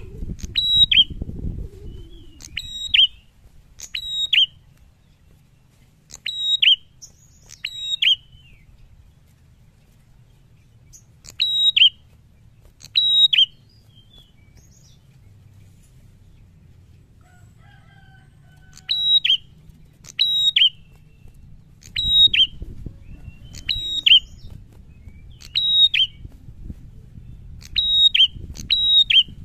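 A caged prenjak (prinia) giving loud, sharp chirping calls, each a quick cluster of high notes repeated in runs about once a second, with a pause of several seconds in the middle. Wings flutter against the cage at the start and again during the last run of calls.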